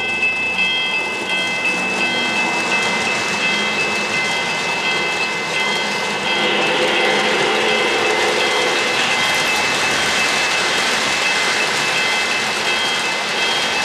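O-gauge model trains rolling on three-rail track, a steady rumbling clatter of wheels and motors that grows louder about six seconds in as the Lionel N&W bicentennial freight passes close by. A high electronic ding repeats under it about once a second.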